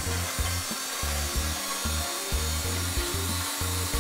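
Electric hand mixer running steadily, its beaters whisking eggs in a glass bowl.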